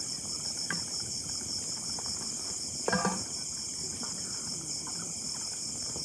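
Crickets chirring in a steady high continuous drone, with a few faint scattered clicks and a brief voice-like sound about halfway through.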